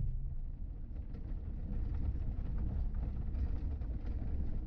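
Vehicle driving slowly, heard from inside the cabin: a steady low rumble of engine and tyres with faint scattered ticks.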